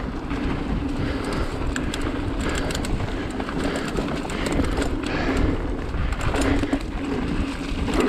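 Mountain bike riding fast down dirt singletrack: tyres rolling over dirt and roots, with the bike clattering and ticking over bumps and a steady low buzz that breaks off now and then.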